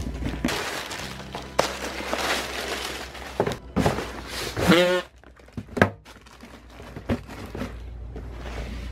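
Cardboard shoe boxes being slid and set down on a shelf: a scraping hiss, then several knocks and thunks, with a short squeak about halfway through.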